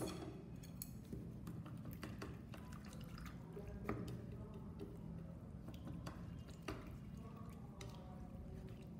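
Wooden chopsticks stirring shredded daikon and carrot in water in a stainless steel bowl: wet swishing and dripping with scattered light clicks at irregular times.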